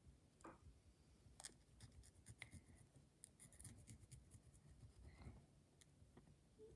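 Faint scratching and light tapping of a pen tip drawing on paper, in short irregular strokes.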